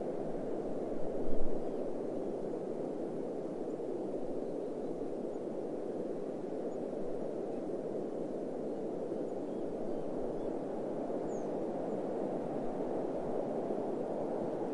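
Steady low wind blowing, a soft even rush without tones, with a brief low thump about a second and a half in.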